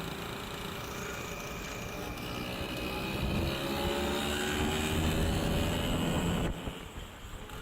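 Restored vintage Piaggio scooter's engine running under way, its pitch climbing steadily as it accelerates, then dropping away suddenly about a second before the end.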